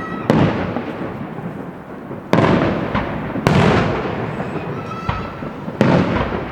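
Aerial fireworks bursting: four sharp bangs, roughly a second or two apart, each followed by a long fading echo.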